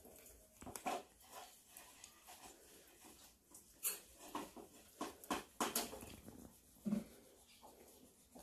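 Kittens giving a few short, soft mews among scattered sharp clicks and taps.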